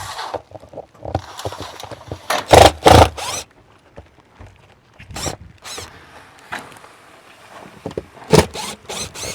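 Metal roofing sheet being handled: a run of bangs and rattles, the two loudest close together about two and a half seconds in and another loud one near the end.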